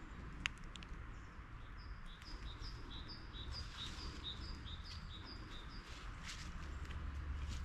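A small songbird sings a quick phrase of two alternating high notes, repeated about ten times. A couple of sharp clicks come just under a second in, over a steady low rumble.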